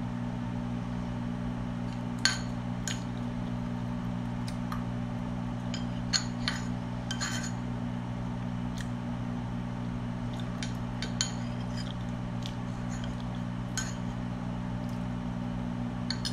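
Metal spoon clinking and scraping against a plate while eating, a few sharp clinks spread through, the loudest about two seconds in. A steady low hum runs underneath.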